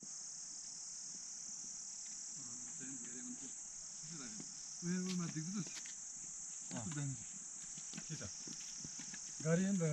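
A steady, high-pitched drone of insects that runs without a break, with faint voices of people talking now and then.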